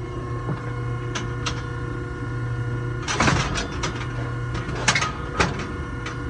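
Metal clanks and knocks from a steel bucking chute holding a bull, a few single knocks and a louder cluster of rattles about three seconds in, over a steady mechanical hum.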